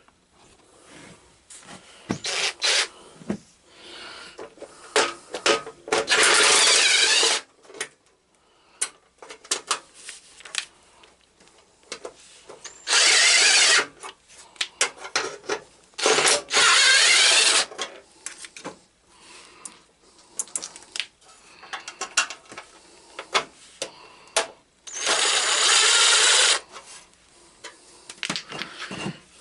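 A handheld power tool such as a drill or driver running in four short bursts of about a second each, with clicks and clanks of metal parts and tools in between.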